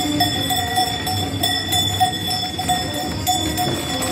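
Galician wooden ox cart rolling past, its axle turning against the wooden body and giving off a steady, pulsing squeal: the traditional "singing" of these carts, made by wood rubbing on wood.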